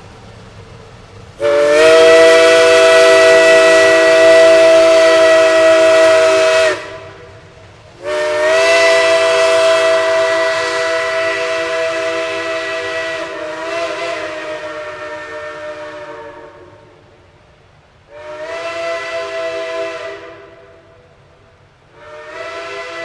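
Steam locomotive's chime whistle sounding several notes at once, blown long, long, short, then long again; the second long blast fades away slowly. The pattern is the standard grade-crossing signal.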